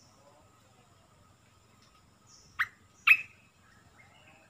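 Olive-winged bulbul calling: two short, sharp, downward-sliding notes about half a second apart, with softer twittering notes after them.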